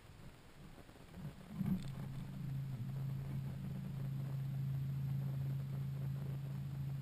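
Electric bow-mounted trolling motor coming on after a short knock about two seconds in, then running with a steady low hum.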